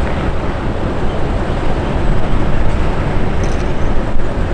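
Small diesel shunting locomotive's engine running as it hauls carriages slowly along the street track, a steady low rumble.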